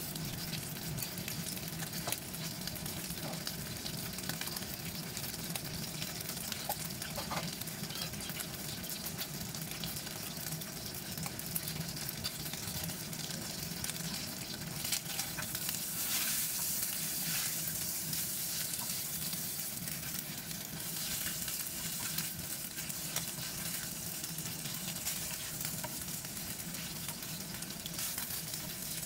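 Cubed pork ribs sizzling in hot oil in a nonstick frying pan: a steady crackling hiss that swells louder for a few seconds in the middle.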